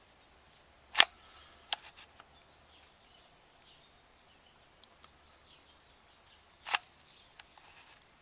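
Sharp clicks and taps from handling the hot glue gun and the plastic projectile casing: a loud click about a second in, a lighter one shortly after, and another loud one near the end, over a quiet background.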